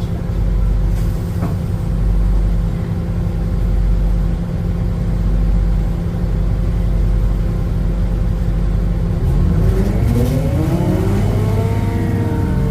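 Diesel-hydraulic railcar engine running steadily at low revs. About nine and a half seconds in, it climbs in pitch as the train accelerates, then levels off near the end.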